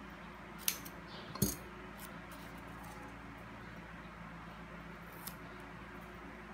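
A roll of double-sided tape and paper pieces handled on a tabletop: two sharp clicks early on, the second the loudest as the tape roll is set down, a faint tap later, over a low steady hum.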